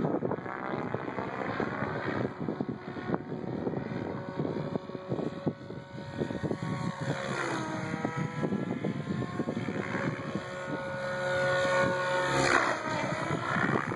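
SAB Goblin 770 electric RC helicopter in flight: rotor chop with a motor-and-gear whine that slides down and back up in pitch twice as it manoeuvres and passes. It is loudest near the end.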